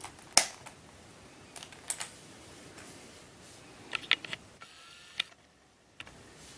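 Hard plastic clicks and clacks of a Shengshou 3x3 speed cube being handled: a few sharp, separate clicks at irregular intervals, with a quick cluster about four seconds in.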